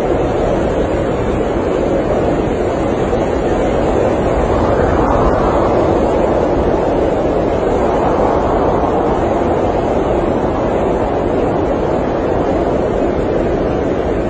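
Blizzard wind blowing steadily as a dense rushing noise, swelling in gusts about five seconds in and again around eight seconds.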